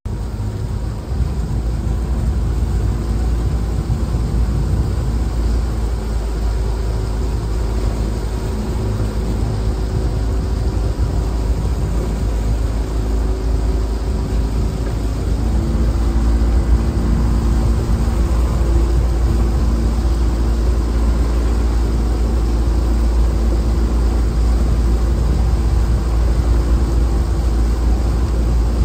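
Outboard motor of a small boat running steadily at low speed, a constant engine drone over a low rumble, its pitch shifting slightly about halfway through.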